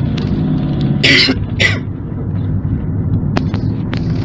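A person coughing twice in quick succession, about a second in, over the steady low drone of a van's engine and road noise heard inside the cabin.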